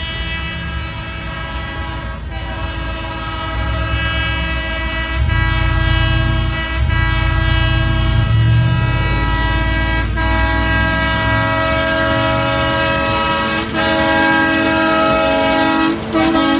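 Air horns on a railway track gang's equipment blowing long, loud sustained chords, several notes at once, broken by brief gaps every two to four seconds. A low rumble runs beneath, swelling through the middle.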